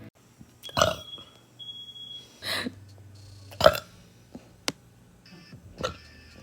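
A woman burping again and again, several short separate burps with the loudest about halfway through; she is burping nonstop from drinking a lot of carbonated drinks.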